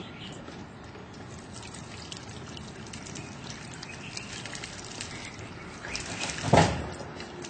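Water being poured into a plastic bottle, filling it about halfway for a homemade water rocket: a steady pouring trickle. A brief loud bump of noise comes about six and a half seconds in.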